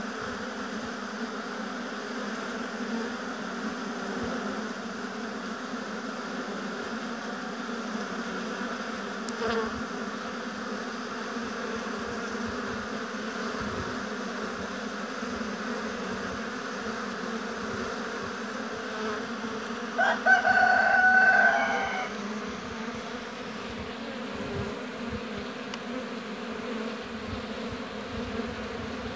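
Honeybees buzzing steadily at the hives, a dense even hum. About twenty seconds in, a loud pitched call held for about two seconds rises over the buzz.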